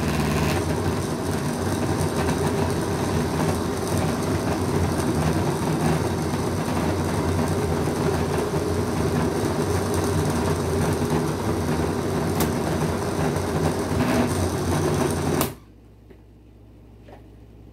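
Electric countertop blender running steadily on a full jar of onions and scotch bonnet peppers, then switched off, stopping suddenly about fifteen seconds in.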